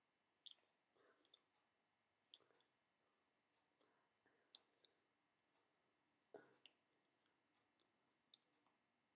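Near silence, broken by faint scattered clicks and soft taps from a person signing, with a slightly stronger click about six seconds in.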